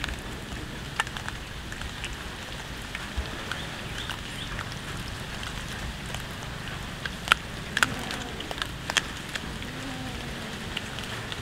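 Cat chewing raw fish, crunching it with scattered sharp clicks, the loudest cluster about seven to nine seconds in, over a steady background hiss.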